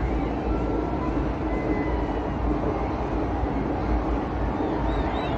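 Steady outdoor city noise with a strong low rumble, with a faint wavering whistle near the end.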